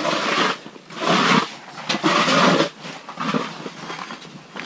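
Hand ice auger cranked into lake ice, its steel blades grinding and scraping in about four rasping bursts, one per push of the crank, that fade over the last second.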